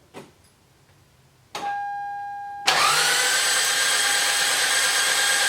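A steady electronic warning tone starts about a second and a half in. About a second later the starter begins cranking the Toyota 5S-FE engine, its whine rising and then holding an even, fast whir: with the spark plugs removed there is no compression, so the engine spins freely and never fires.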